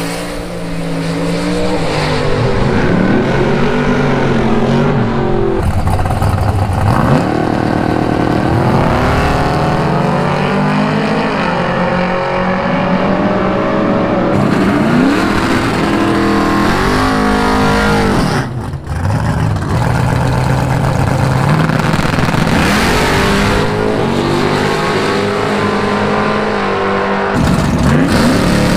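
Drag-racing muscle cars launching hard off the starting line one after another, their engines revving loudly with the pitch climbing up through the gears several times over. There is a brief drop in the sound about two-thirds of the way through, where one run gives way to the next.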